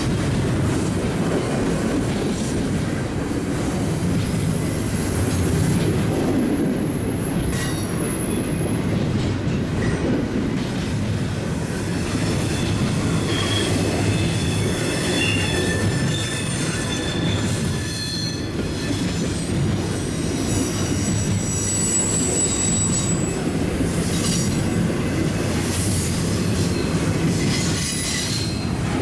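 Double-stack intermodal well cars rolling past: a steady rumble of steel wheels on rail, with thin high-pitched wheel squeals coming and going, most of them in the second half.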